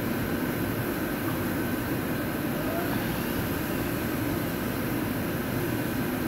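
Steady, even mechanical drone of a machine shop's background noise, with a faint steady high tone above it.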